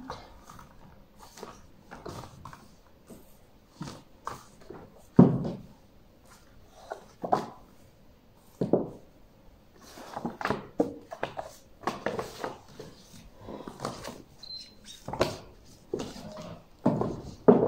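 Picture books being handled at a wooden bookstand: irregular knocks as books are set against the display ledges, with paper and cover rustles between them. The loudest knock comes about five seconds in.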